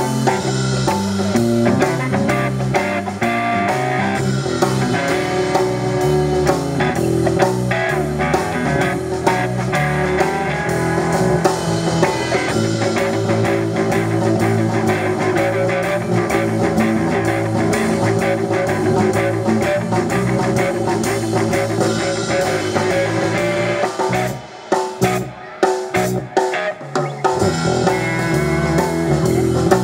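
Live blues-rock band: electric guitar playing lead lines high on the neck over bass guitar and a drum kit. A little after twenty seconds in, the band drops to a few short stabs with gaps between them, then comes back in together.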